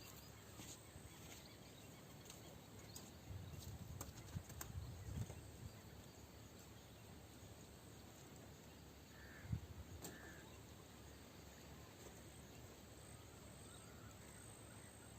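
Near silence: faint outdoor ambience, with low rumbling from the microphone being handled for a couple of seconds, one soft thump about nine and a half seconds in, and two faint chirps just after.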